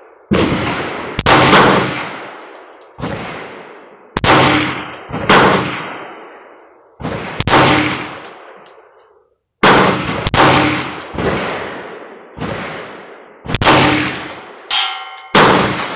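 9mm Glock 17 pistol firing Blazer Brass rounds one at a time, a dozen or more single shots at an uneven pace of roughly one a second, each with a ringing echo.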